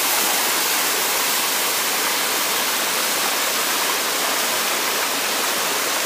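Waterfall close by: a steady, loud, even hiss of falling water that does not change.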